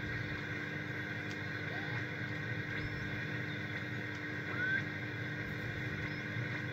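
Shortwave static and hiss from a Bendix RA-1B aircraft radio receiver being tuned across its band, with a few faint whistles sliding in pitch as the tuning passes over signals.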